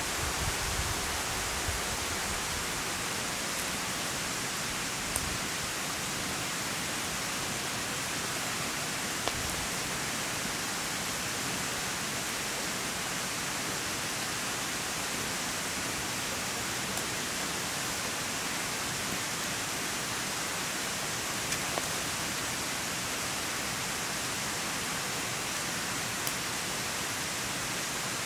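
Steady rushing of a forest stream, an even hiss of water that does not change, with a few faint clicks.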